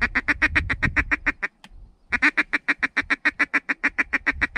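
Mallard duck call blown in a fast, even feeding chuckle of short notes, about eight a second, with one short break about a second and a half in. The call is working incoming mallards toward the decoys.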